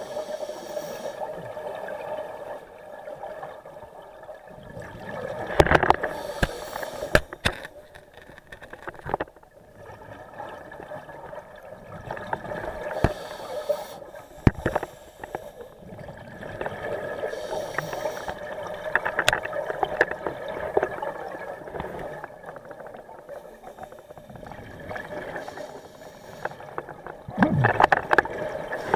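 Scuba diver breathing through a regulator, heard underwater: a steady hissing inhale alternating with louder gurgling bursts of exhaled bubbles about every seven seconds.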